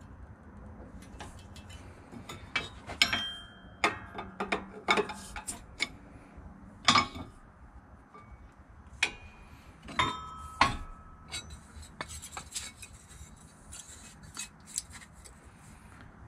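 Steel parts clanking and clinking in a hydraulic shop press as a flat steel strap is bent around a round die and handled: irregular sharp metal knocks, the loudest about 3, 7 and 10 seconds in, a couple ringing briefly.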